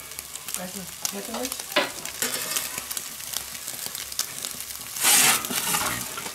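Steady hiss from a Steak Burner XL gas top-heat grill with a pizza baking on its stone. About five seconds in, a metal pizza peel scrapes across the pizza stone as it is pushed under the pizza.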